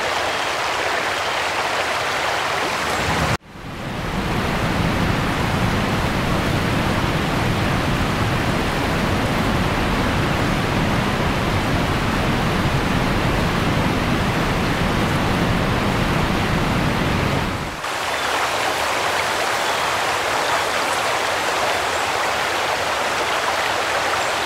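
Flood water flowing over a road, a steady rushing noise. The sound cuts out for a moment about three seconds in and comes back fuller and lower, then shifts back to a thinner rush near eighteen seconds in.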